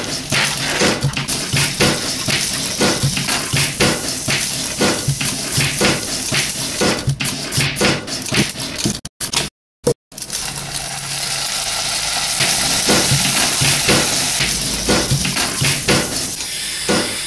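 Food sizzling in a frying pan, with knocks and clatter of utensils on the pan falling in a steady beat of about two a second. The sound cuts out briefly about halfway through, and the sizzle is louder after that.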